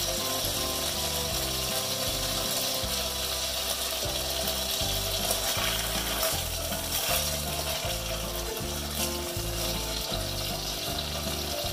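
Red potato chunks sizzling as they fry in oil in a pot, with a spatula stirring and scraping them around the middle. Background music plays underneath.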